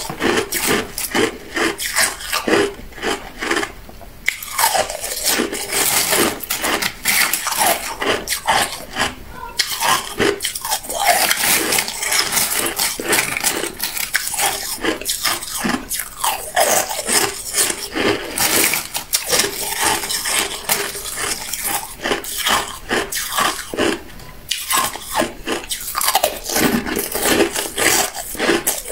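Hard clear ice being bitten and chewed: a dense, continuous run of loud crunches, broken by a few brief pauses.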